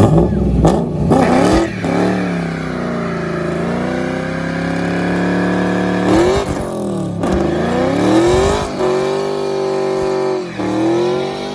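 Fourth-generation Chevrolet Camaro doing a burnout: the engine revs up and is held at high revs, dropping and climbing back a few times, as the rear tyres spin.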